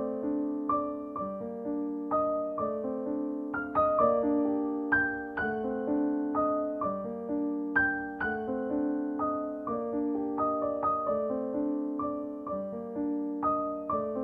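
Background piano music: a melody of separate struck notes, each ringing and fading, a few notes a second.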